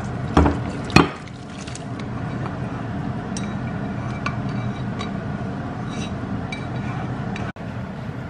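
Metal cooking pot knocking twice against a ceramic bowl, then a few light clinks as noodle soup is tipped out of it into the bowl, over a steady low hum.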